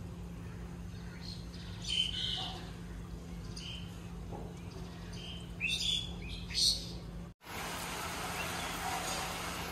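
Several birds chirping and calling over a steady low hum. After a brief dropout about seven and a half seconds in, a steady hiss of rain takes over.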